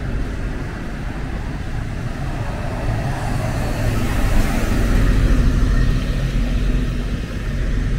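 Street traffic: a motor vehicle's engine running steadily close by, with a passing vehicle that swells to its loudest about four to five seconds in.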